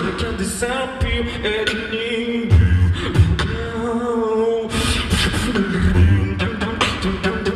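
Solo beatboxer performing into a microphone over a PA: deep vocal kick-drum thumps and sharp clicking snare and hi-hat sounds, with a gliding vocal melody line carried over the beat, all made by one voice.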